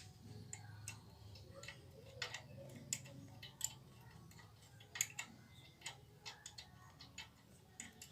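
Faint, irregular clicks and taps of hand tools and metal parts being handled while a motorcycle engine is taken apart, over a weak low hum.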